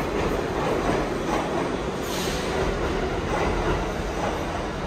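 New York City Subway D train running past an underground platform: a steady rumble of wheels on rail, with a brief higher-pitched hiss about two seconds in.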